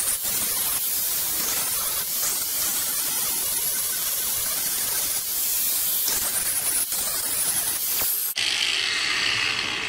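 Angle grinder grinding down welds on a steel motorcycle exhaust pipe, a steady hiss of disc on metal. About eight seconds in the disc leaves the work and the grinder runs free, winding down.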